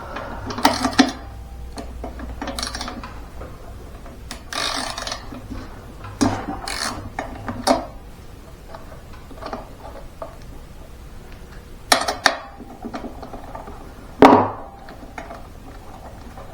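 Metal hand tools clinking and clanking against each other and against a Husqvarna backpack blower, in separate sharp knocks, while its spark plug is taken out and checked. The loudest knocks come about a second in, and twice near the end.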